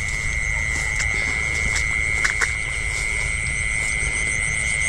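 A steady, unbroken high-pitched insect trill, cricket-like, holding one pitch, over a low rumble with a few faint clicks.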